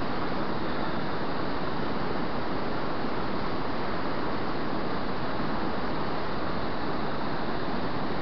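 Steady, unbroken rush of fast, turbulent river water churning in whitewater.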